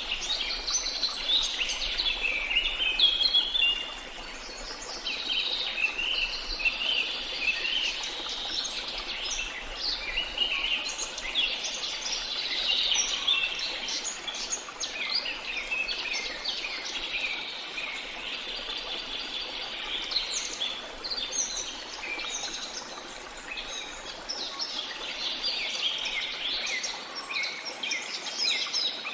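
Many small birds singing and chirping at once, a dense overlapping chorus of quick high chirps and trills, over a faint steady background hiss.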